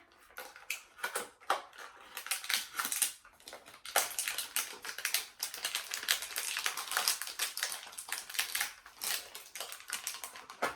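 Packaging being torn and crinkled by hand as a small mystery pin box is opened, a dense run of irregular crackles and clicks.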